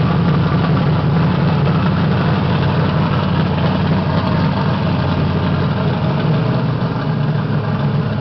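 Car engine idling loudly with a steady, deep rumble, holding the same pitch without revving.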